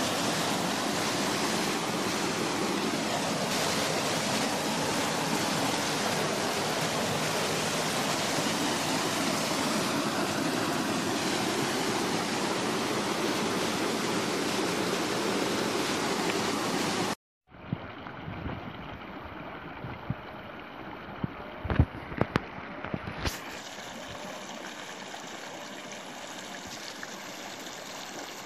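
Mountain stream rushing over rocks, loud and close at first. After a sudden cut about two-thirds of the way in, the water is quieter and more distant, with a few sharp knocks and taps.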